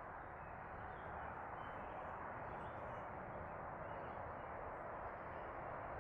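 Steady outdoor background noise, an even rushing hiss, with a few faint bird chirps.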